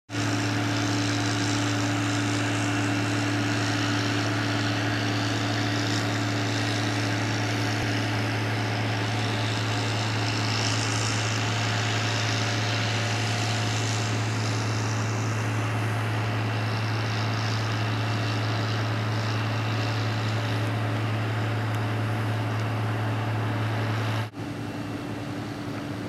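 A steady, unchanging mechanical drone with a strong low hum and a fainter hiss above it, cutting off abruptly near the end.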